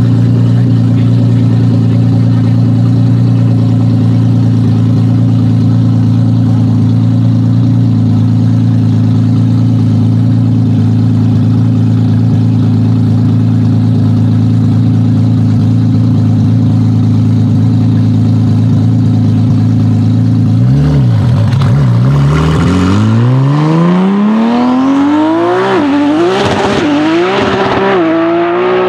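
Tuned Nissan GT-R R35's twin-turbo V6 running steadily at one held engine speed for about twenty seconds. Then the note dips and rises steeply as the car accelerates hard, with a few quick drops and climbs in pitch near the end as it shifts gears.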